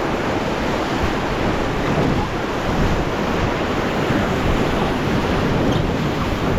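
Rushing river whitewater around a raft, a steady noise of fast-flowing water with wind on the microphone.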